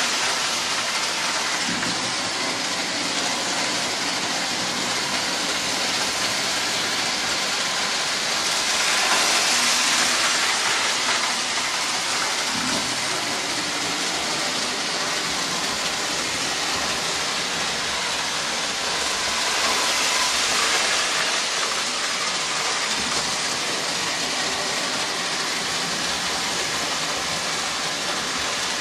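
Electric model train running around its track loop: a steady rushing rumble of wheels and motor on metal rail, swelling louder twice, about eleven seconds apart, as it passes closest.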